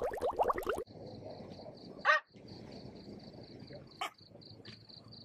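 A fast rattle, about ten beats a second, cuts off under a second in. Then comes a steady, pulsing chirr of crickets, with a single sharp bark from a small dog, a Shih Tzu, about two seconds in and a fainter yip about four seconds in.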